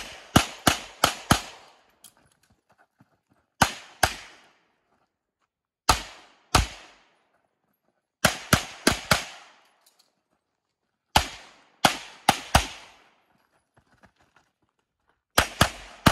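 Rapid handgun shots from a Tanfoglio pistol in IPSC Production division, fired in quick strings of two to five. Each string is followed by a gap of a second or two while the shooter moves to the next position. Each shot is a sharp crack with a brief echo.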